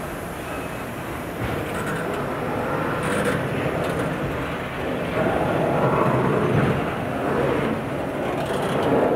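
Freight train of autorack cars rolling past close by: a steady noise of steel wheels running on the rails, growing louder about five seconds in.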